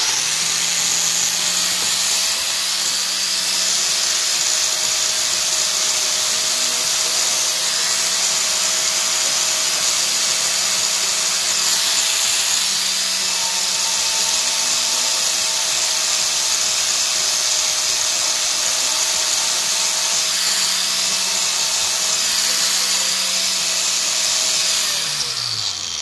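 Small electric angle grinder with a polishing wheel running steadily at speed while buffing a multi-tool saw blade, a constant motor whine over a hiss. Near the end it is switched off and the whine falls away as the wheel spins down.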